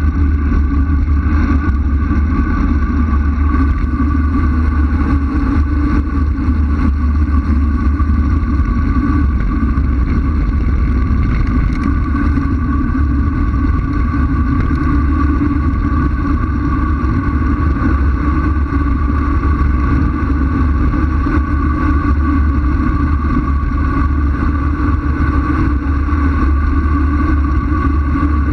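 Wind rushing over the microphone of a bike-mounted camera on a fast road-bike descent: a loud, steady low roar with a constant higher hum over it.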